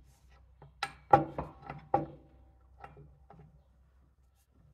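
Metal clanks and knocks as a driveshaft's rear U-joint is worked against the differential's pinion yoke: about seven short strikes, the loudest about a second in, some with a brief ring. The shaft will not seat because it is 3/4 to 1 inch too long.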